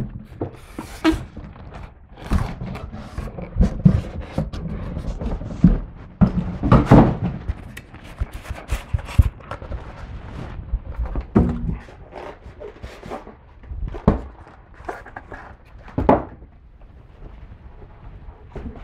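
Unpacking noise from a boxed turntable: styrofoam packing blocks rubbing and scraping against the cardboard box, cloth and plastic wrapping rustling, and irregular thunks and knocks as the pieces are lifted out and set down.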